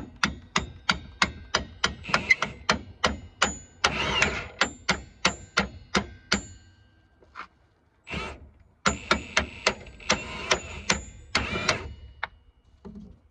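Hammer blows on a steel suspension bolt, driving it out of the rear knuckle of a 1991 Ford Probe: sharp metal-on-metal strikes, each with a brief high ring, about three a second. The strikes stop for about two seconds past the middle, then resume in a second quick run.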